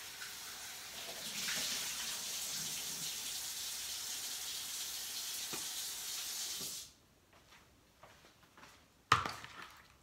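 Kitchen faucet running into a stainless-steel sink as thawed chicken is rinsed in a bowl under the stream, a steady hiss that stops abruptly when the tap is shut off about seven seconds in. A few light clicks follow, then one sharp knock near the end.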